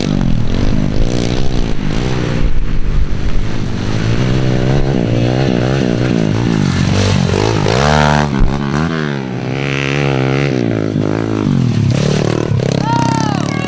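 Small pit bike engines revving, their pitch climbing and falling again and again as the throttle is worked through mud, with several bikes passing one after another.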